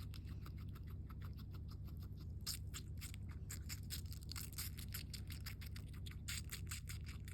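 Skinny guinea pig chewing watermelon: quick, crisp, wet chewing strokes, several a second, over a low steady hum.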